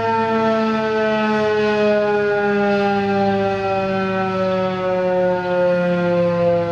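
Federal Signal 2001-130 electromechanical outdoor warning siren sounding a loud, continuous tone whose pitch falls slowly: the siren is winding down at the end of its test.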